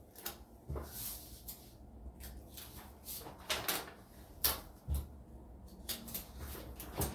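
Sheets of paper being handled on a tabletop: scattered rustles and light knocks, a handful of separate strokes.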